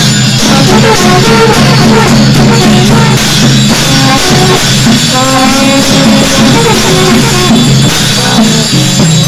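Loud live Buddhist ritual music of the lama dance: drumming and cymbals under a melody of held, stepping notes on horns.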